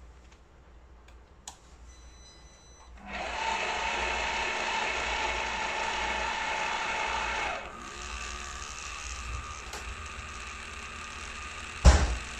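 Okka Turkish coffee machine's mechanism starting up and running steadily about three seconds in. It drops to a quieter run about halfway through, with one sharp knock near the end.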